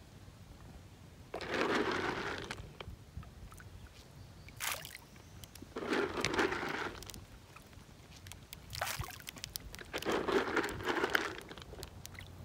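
Water splashing at a pond's surface in about five short bursts, as a crowd of fish feeds on floating feed pellets.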